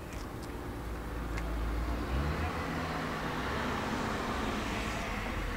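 A car driving past on the street, its tyre and engine noise swelling over the first couple of seconds, holding, then easing off near the end.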